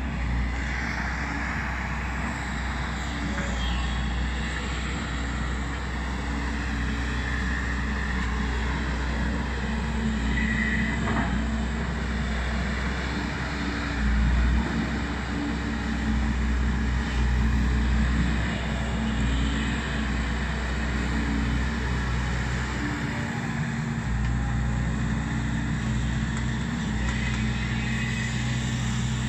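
Volvo EC210B crawler excavator's diesel engine running steadily, briefly louder a couple of times near the middle.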